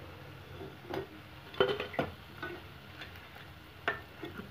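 A perforated metal slotted spoon clinking a few times against the frying pan and a steel plate as fried sabudana vadas are lifted out of the oil, with a faint sizzle of hot oil underneath.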